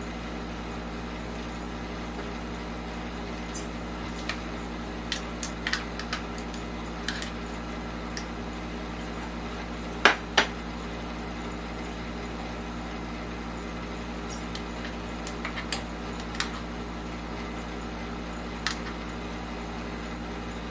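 Kitchen clatter of dishes and utensils: scattered light clinks and taps, with two sharp clacks close together about halfway through, over a steady mechanical hum from a kitchen appliance.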